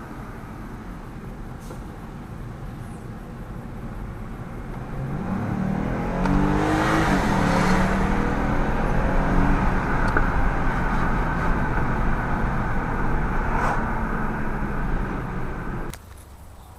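Lexus IS250 driving on asphalt, heard from inside the cabin: steady engine and road noise that grows louder as the car speeds up about five seconds in, the engine note rising, then holds steady until it cuts off shortly before the end.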